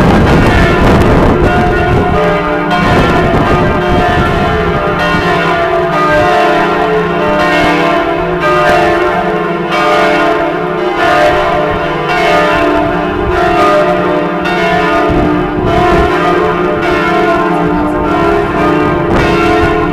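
The church bells of Notre-Dame de Paris ringing together, loud and close: many bells struck again and again, their tones overlapping and ringing on, with a deep low hum strongest in the first couple of seconds.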